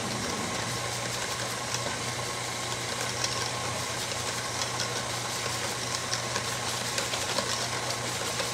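KitchenAid stand mixer running steadily as it whips egg whites toward soft peaks, with light irregular clicks of a wire whisk stirring batter in a stainless steel bowl.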